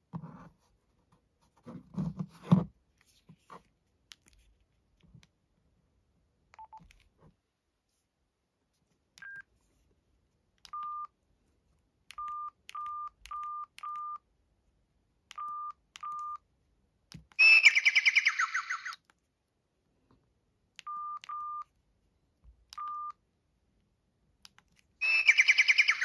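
Samsung SGH-T410 flip phone's keypad beeps: about a dozen short single-pitch beeps as menu keys are pressed, with a few low thuds about two seconds in. Past the middle comes a short burst of rapid trilling electronic tones, and near the end a polyphonic ringtone preview starts playing.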